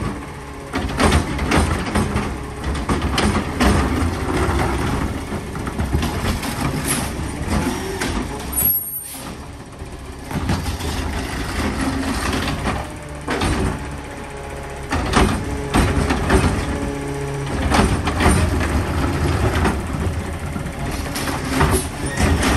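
Peterbilt 520 diesel garbage truck with a McNeilus ZR automated side-loader body at work: the engine running under many clanks and bangs, with air brake hisses.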